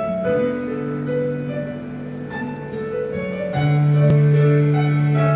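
Instrumental intro of a country ballad backing track: keyboard chords over sustained bass notes, changing every second or so, with no voice yet.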